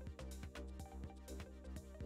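Quiet background music with a steady beat over a bass line.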